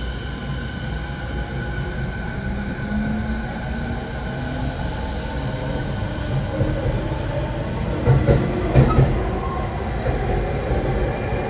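A Tokyo Waterfront Area Rapid Transit 70-000 series electric train running, heard from inside the car: steady running rumble with a whine from the motors, its low pitch rising a little. Around eight seconds in, a few knocks from the wheels over rail joints stand out as the loudest moment.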